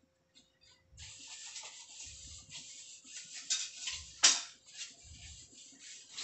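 Pot of chicken tinola broth heating on the stove, starting about a second in to hiss and crackle as it comes up toward a boil. There is one sharp click about four seconds in.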